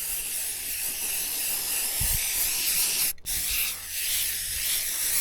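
Aerosol can of white spray paint spraying in a steady hiss, released briefly about three seconds in and then pressed again.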